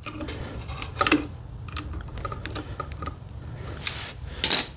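Light clicks and scrapes of wire strippers working a bare copper ground wire, bending it into a hook for a receptacle screw terminal. The clicks are scattered and irregular, with a louder one about a second in and a louder scrape near the end.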